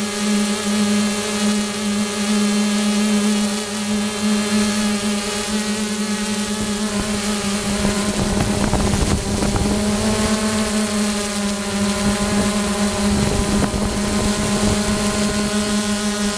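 Multirotor drone's electric motors and propellers whining steadily in flight, the pitch shifting slightly as the motors change speed. Wind buffets the microphone about halfway through and again later.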